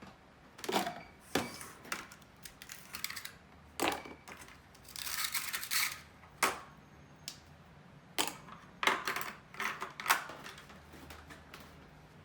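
Kitchen clatter while making a latte: scattered clinks, taps and knocks of cups, utensils and coffee gear, with a second-long hissing, rushing stretch about five seconds in.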